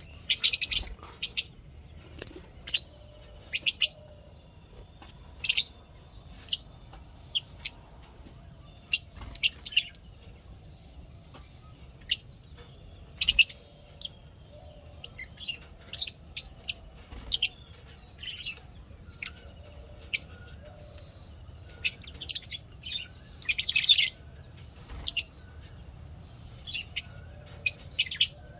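Lovebirds chirping: short, sharp, high-pitched calls at irregular intervals, some in quick clusters of two or three, with a couple of longer, harsher bursts, one about 24 seconds in.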